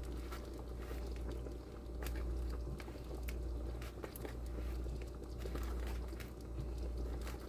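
Pot of chicken broth at a boil, bubbling with irregular small pops and clicks over a steady low hum.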